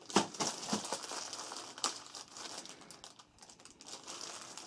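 Black foil blind bag being crinkled and torn open by hand: irregular crackling, loudest in the first second, with a sharp snap about two seconds in and quieter crinkling after.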